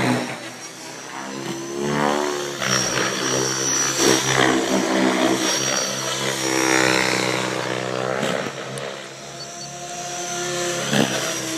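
Electric Mikado Logo 700 XXTreme RC helicopter in flight: its rotor blades hum and whoosh, with the pitch rising and falling as it swoops past and manoeuvres.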